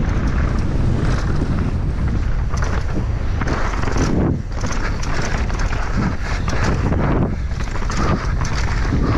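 Wind rushing over a helmet-mounted action camera's microphone while a mountain bike is ridden fast down a rough trail, with a constant low rumble and frequent rattles and knocks from the bike over the ground.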